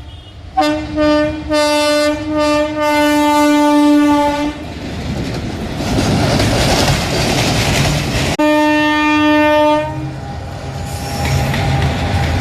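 Indian Railways freight locomotive horn: a few short blasts running into a long one, then the rumble and clatter of a passing train. A second horn blast starts abruptly about eight seconds in and lasts about a second and a half, followed by more train rumble.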